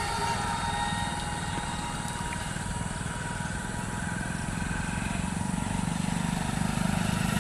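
Motorcycle engine running as it goes by, growing louder in the last couple of seconds.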